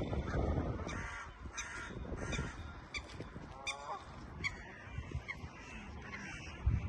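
Waterfowl on a lake calling: a string of short, nasal, honking calls, several in quick succession, mostly in the first few seconds and fading after that.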